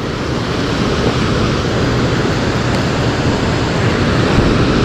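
Steady rush of water pouring through a dam's spillway gates.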